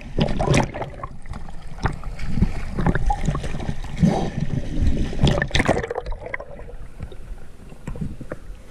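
River water splashing and gurgling around a camera held at the surface as a swimmer strokes through, with irregular splashes and knocks. After about six seconds it goes quieter as the camera dips under the water.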